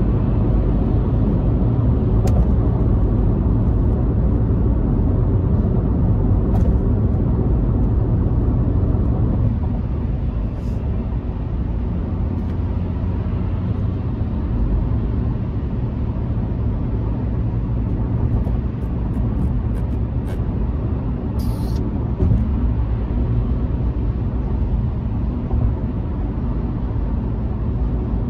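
Road noise inside a moving car's cabin: a steady low rumble of tyres and engine, easing slightly about a third of the way in.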